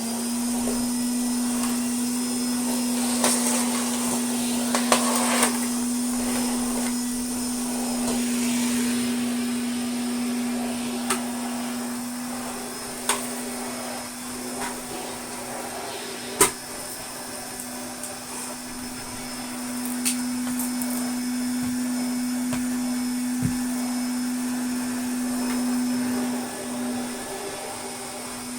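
Hoover Constellation 867A canister vacuum cleaner running steadily, a constant motor hum with airflow hiss, while being used to vacuum. Occasional sharp knocks and clicks come through, and the pitch dips briefly near the end.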